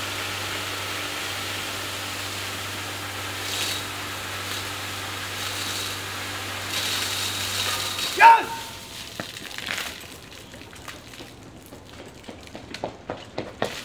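Fire hose nozzle discharging a strong jet of water, a steady rushing hiss over a low hum, which shuts off about eight seconds in around a brief loud shout. Afterward only light clicks and knocks of the hose and nozzle being handled.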